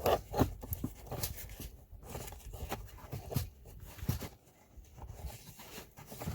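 Replacement HEPA cabin air filter being worked into its plastic housing by hand: irregular scraping and rustling, with several sharp clicks and knocks.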